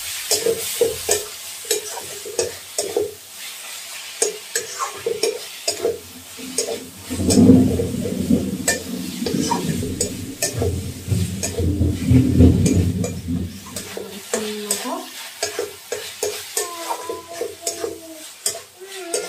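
Metal spatula scraping and stirring prawns in masala around a metal kadai, with the frying sizzling under it; the strokes come as quick, irregular scrapes. A louder low rumble swells in the middle for several seconds.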